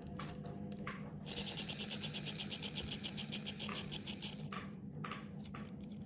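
Pop It fidget spinner handled with light plastic clicks, then spun: a fast, even whirr of rapid ticks starting about a second in and dying away after about three seconds, followed by more scattered clicks.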